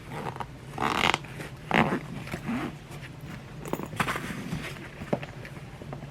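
Heavy-duty zipper on a fabric tool bag being pulled in a few short strokes, about one second in, just under two seconds in and around four seconds in, among clicks and rustles of the bag being handled.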